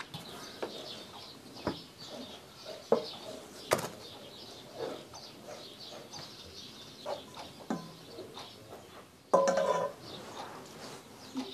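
Small birds chirping in the background, with scattered knocks and taps and a sudden louder clatter with a brief ringing tone near the end.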